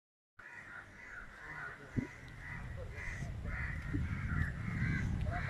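Crows cawing over and over, short harsh calls coming two or three a second, over a low rumble of wind on the microphone. A single sharp knock sounds about two seconds in.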